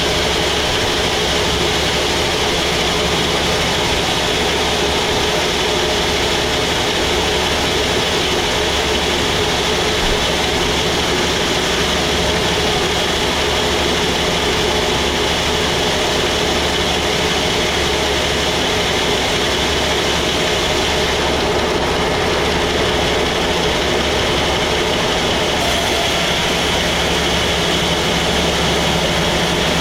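Sawmill machinery running steadily: a continuous engine-like drone with no cuts or changes in pace.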